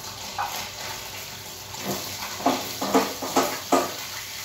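Kitchen work: a steady hiss, with four quick metallic clinks of utensils about halfway through.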